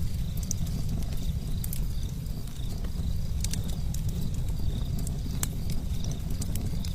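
Steady low rumble of wind on the microphone, with irregular sharp crackles and snaps typical of a wildfire burning. A faint high chirping, like insects, runs underneath.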